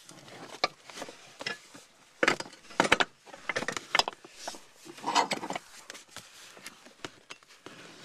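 Irregular clunks, clicks and scraping as the car seat, with its steel extender bracket bolted on, is shifted and handled over the carpeted floor, the loudest knocks about two to four seconds in and again around five seconds.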